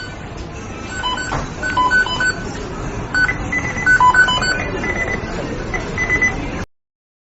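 McDonald's kitchen beeping sound effect: many short electronic beeps at several pitches, overlapping and repeating irregularly over a steady kitchen background noise. It cuts off abruptly near the end.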